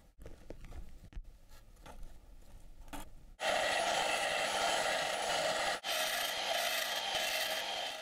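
A few faint taps and scratches, then about three and a half seconds in a steady scraping hiss of a cutting tool going through thin steel flat bar, cutting notches.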